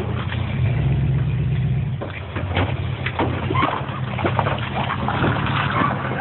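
Off-road vehicle's engine running under load as it drives through a trail obstacle, pushed harder from about half a second to two seconds in. Scattered knocks and clicks from the tires and chassis working over the ground run through the rest.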